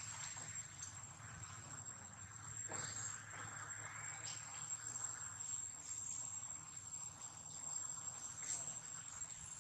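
Insects chirring in the surrounding vegetation: a steady, high-pitched drone, with a few faint scattered clicks over it.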